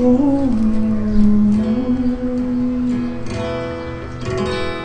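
Live acoustic guitar ending a slow ballad: a long low note is held over the guitar, then a few final strummed chords come in about three seconds in.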